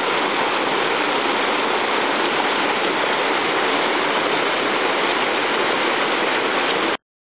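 Water rushing steadily as it spills over a short drop below a culvert outlet and churns into the scour pool beneath. This is a perched crossing: the stream bed downstream has eroded and turned the outlet into a small waterfall. The sound cuts off suddenly near the end.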